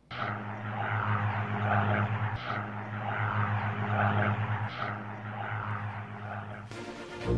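Aircraft engines running: a steady low hum under a rushing noise that swells and fades about twice a second, starting abruptly.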